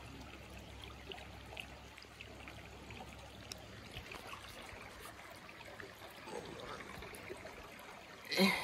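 Faint, steady trickle of shallow water running over rocks, with a brief vocal sound from a person near the end.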